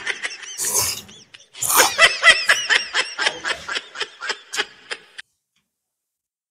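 A quick run of laughter, rapid ha-ha pulses that fade and then cut off abruptly about five seconds in. A short noisy burst comes just before it, about a second in.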